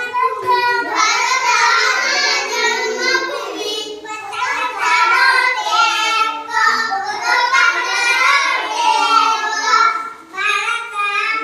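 Young children singing a song together in a high, steady melody, with a short break about ten seconds in.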